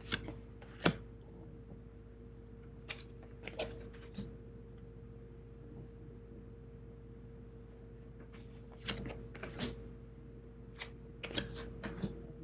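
Tarot cards handled on a tabletop: scattered soft clicks and slides as cards are lifted off the decks and laid down, in several short groups, over a faint steady hum.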